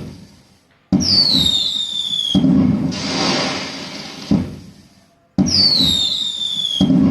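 Firework sound effect played with a pixel LED cracker tree display: a whistle falling in pitch, then a bang with crackling that fades away. The cycle plays twice, starting about a second in and again past the five-second mark.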